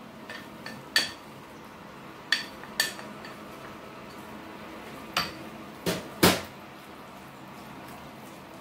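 About six sharp clinks and knocks of kitchen utensils: a spoon against a small glass jar as chopped parsley is tipped out, and a wooden spoon against a frying pan as it is stirred in. The loudest pair of knocks comes about six seconds in.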